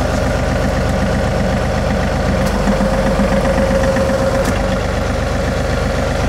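John Deere 3038E compact tractor's three-cylinder diesel running steadily as the three-point hitch is raised, with a steadier, brighter whine in the engine note for about two seconds in the middle. This is the hydraulic pump loading up as the hitch reaches the top of its travel, a sign that the hitch's upper limit still needs adjusting.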